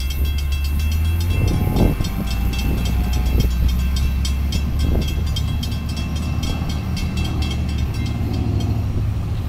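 Railroad crossing bell ringing in rapid, even strokes while the crossing gates rise, over a steady low engine rumble; the bell stops near the end.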